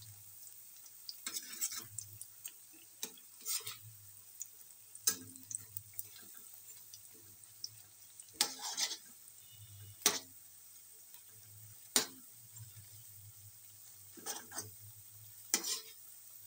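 Perforated metal slotted spoon scraping and clinking against an iron kadhai as pakoras are turned in hot oil, over a faint sizzle of deep frying. The scrapes come in irregular bouts every second or two, with the sharpest knocks about ten and twelve seconds in.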